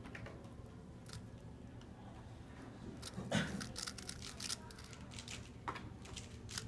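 3x3 speedcube being turned by hand: irregular plastic clicks of its layers, coming in a quick flurry in the middle, with a louder knock about three and a half seconds in.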